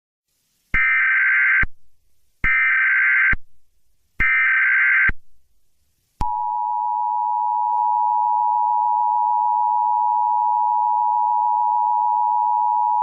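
Emergency Alert System tones: three SAME header data bursts, each a harsh digital screech about a second long, followed about six seconds in by the steady two-tone EAS attention signal (853 and 960 Hz played together). The tones mark the start of an emergency alert.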